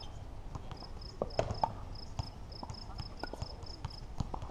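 Pickleball paddle-and-ball pops and ball bounces on a hard court, a few scattered sharp hits, over an insect chirping in steady, evenly spaced pulses.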